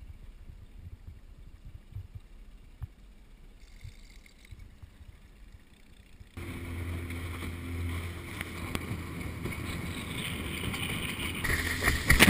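Quiet for about six seconds apart from a faint low rumble, then suddenly a boat under way: a motor running steadily with water rushing along the hull. Near the end the water noise grows louder and splashier as spray is thrown off the hull.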